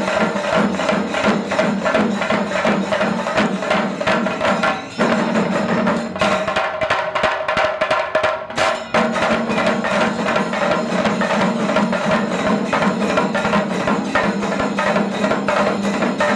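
Chenda melam: a large ensemble of Kerala chenda drums, cylindrical wooden drums beaten with sticks, playing a dense, rapid rhythm. About six seconds in the ensemble thins to sparser separate strokes for roughly three seconds, then all the drums come back in.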